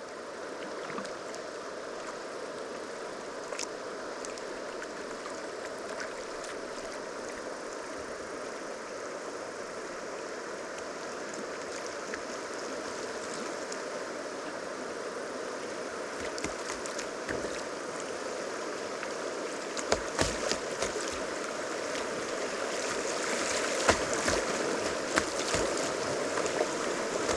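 River water rushing steadily past. From about halfway through, scattered knocks and splashes join in, growing more frequent and louder toward the end.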